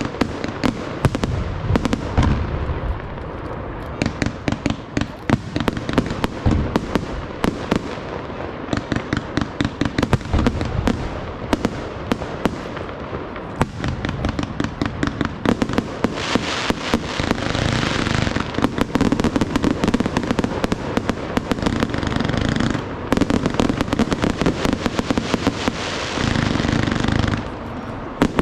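Professional fireworks display: shell bursts and sharp bangs going off in rapid succession, several per second. About halfway through they thicken into a dense, continuous crackle of reports, broken by two short dips before a last flurry of bangs.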